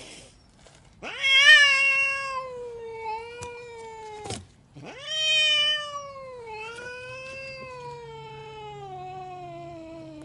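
Angry domestic cat yowling: two long drawn-out warning yowls, the first starting about a second in and lasting about three seconds, the second longer and sliding steadily down in pitch near the end.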